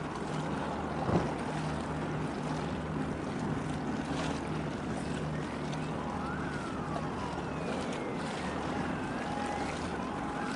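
Harbour ambience: a steady, pulsing low engine hum from boats working in the harbour over wind and water noise. There is one sharp knock about a second in, and thin whistles rise and fall in the second half.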